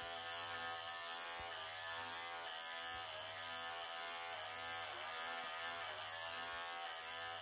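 Wahl professional pet clippers running steadily, their pitch dipping briefly several times as the blade works under tight mats in a long-haired cat's coat.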